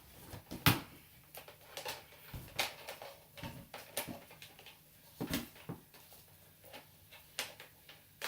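Handling noise from a Hoover Portapower vacuum cleaner and its flex being moved about: irregular clicks, knocks and light rattles, the loudest knock less than a second in.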